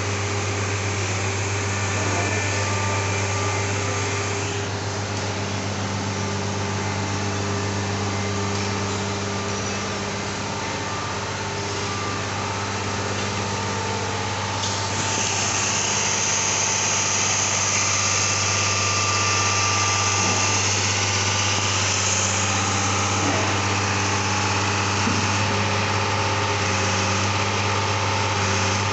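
Engine of a rail-mounted track maintenance machine running steadily at idle-like speed, a constant low hum. About halfway through, a high hiss joins it and continues.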